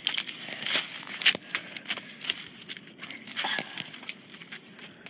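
Footsteps crunching irregularly on a dry dirt path strewn with leaves and grit, with scattered crackles and rustles.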